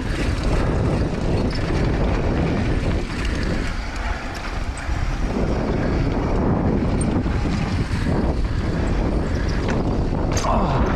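Wind buffeting the microphone of a camera on a mountain bike riding fast downhill, with the tyres rolling over a packed-dirt trail under the steady rush.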